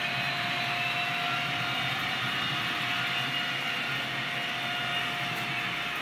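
Recorded diesel engine sound of a Reichsbahn class 131 locomotive, played by the Zimo sound decoder through the small loudspeaker of a Piko model locomotive. It runs steadily, with a constant whine over a thin, hissy engine drone.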